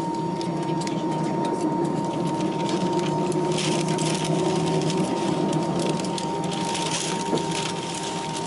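Steady cabin hum of an Airbus A319 with its CFM56 engines at idle as it taxis slowly onto the gate, with low droning tones and a thin steady whine near 1 kHz.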